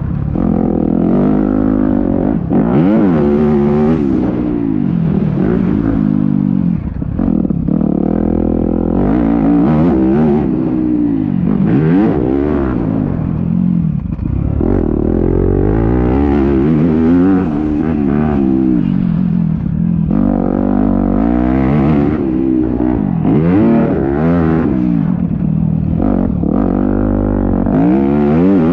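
Yamaha YZ250F motocross bike's four-stroke single-cylinder engine revving hard and dropping back again and again as the rider accelerates, shifts and rolls off through the track's turns, heard from a helmet-mounted camera.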